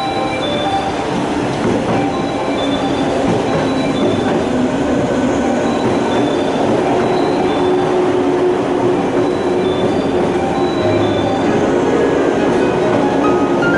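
Train running on rails: a steady rumble that grows gradually louder, with a whining squeal from the wheels coming in near the end.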